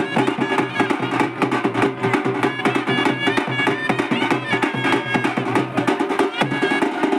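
Band music with fast, steady drumming: a quick run of drum strokes under a pitched melody line.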